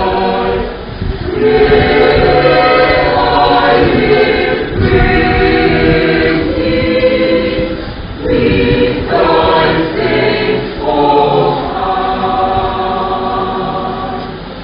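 Church choir singing together in phrases, with short breaks between them, the singing dying away near the end.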